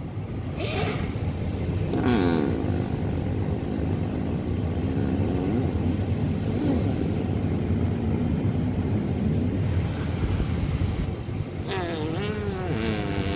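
A boy blowing a raspberry against a bare arm: a long, buzzing fart-like noise of lips vibrating on skin, wavering in pitch.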